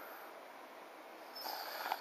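A sleeping French bulldog snoring: one snoring breath starting about a second and a half in and lasting about half a second, cutting off sharply.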